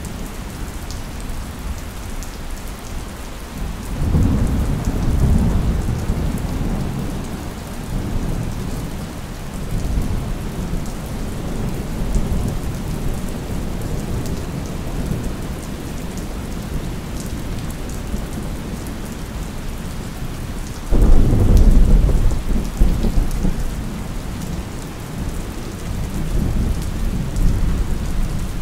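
Steady rain falling, with thunder rumbling: a low rumble swells about four seconds in, and a louder, sudden clap comes a little after twenty seconds and rumbles away over the following seconds.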